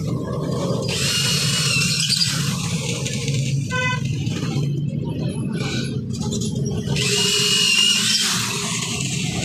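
Corded electric drill boring through bamboo, with two high whining bursts, one about a second in and another near the end. A few knocks and clicks come in between, over a steady low hum.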